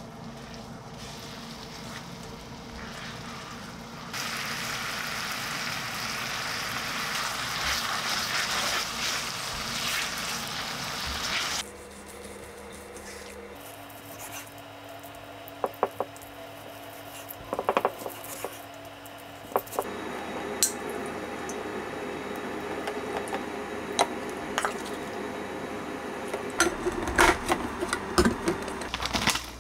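Teriyaki chicken sizzling in a frying pan, turned in the sauce with tongs; the sizzle grows much louder about four seconds in and stops about twelve seconds in. Then a few sharp knocks of a knife slicing the chicken on a wooden cutting board, and near the end scattered clicks and clinks of glass food-storage containers and lids, coming faster toward the end.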